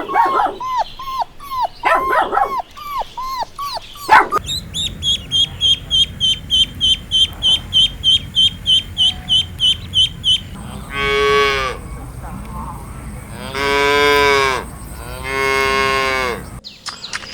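Dog, likely a puppy, yipping and whimpering in quick repeated yelps for about four seconds. Then a rapid, regular high chirping, about three a second, and three long moos from cattle, each about a second long, near the end.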